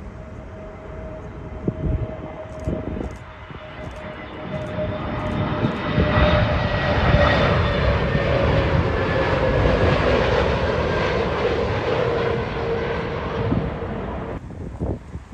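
British Airways Airbus A320neo jet airliner flying low overhead on landing approach. Its engine noise swells from about four seconds in, with a steady whine that slowly drops in pitch as it passes. The sound cuts off abruptly near the end.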